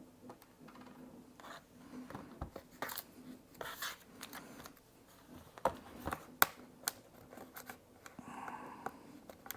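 Small parts handled and pressed against a laptop: soft scraping and rustling, with a few sharp plastic clicks, the loudest about six seconds in, as a part is tried and will not fit.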